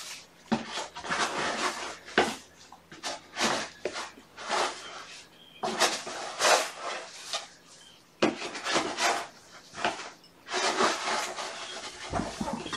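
Irregular rasping scratches and scrapes, a string of quick rough strokes with short pauses between them.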